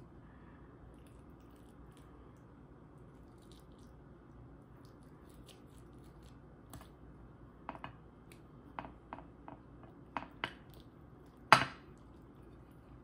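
A spatula cutting into baked lasagna in a glass baking dish: after several seconds of faint room tone, a run of about ten short scrapes and taps of the spatula against the glass, the loudest one near the end.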